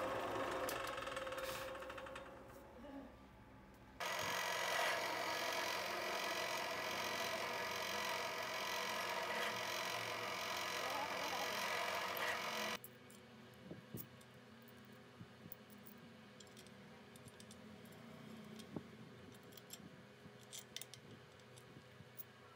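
Pillar drill press running and drilling into a metal block: steady machine noise that winds down in the first few seconds, then comes back loud and steady and cuts off suddenly about halfway through. After that, quieter scattered metal clinks as clamp bolts, washers and parts are handled.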